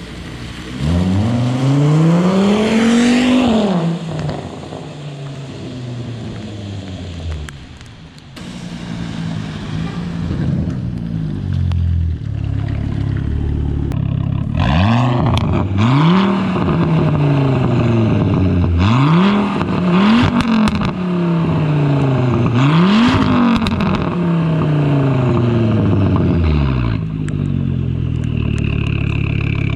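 2004 Volvo S60R's turbocharged five-cylinder engine accelerating hard. One long pull climbs in pitch and then winds back down. From about halfway, a run of pulls climbs in pitch and drops suddenly at each upshift, with short sharp bursts of noise around the shifts.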